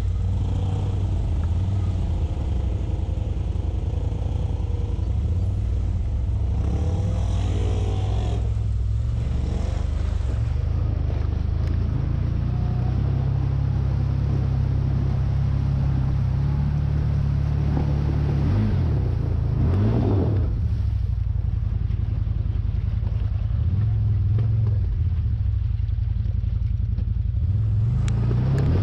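Engine of a 2022 CFMoto ZForce 950 HO EX side-by-side, a V-twin, running steadily while driving. Its low drone rises and falls in pitch as the throttle changes.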